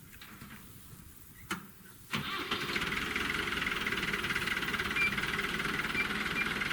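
After a single click, an engine starts abruptly about two seconds in and then keeps running steadily.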